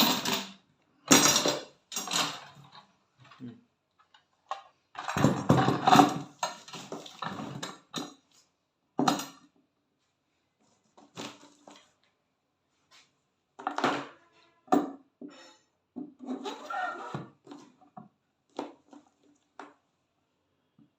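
Irregular metallic clattering and clinking from metal parts being handled and knocked together, in scattered bursts with short pauses; the loudest cluster comes about five to six seconds in.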